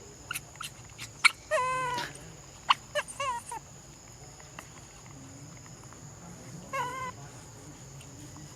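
Baby monkey calling while being fed: high, squeaky arching cries, one longer cry about a second and a half in, a few short ones around three seconds, and one more near the end, with a few sharp clicks in between.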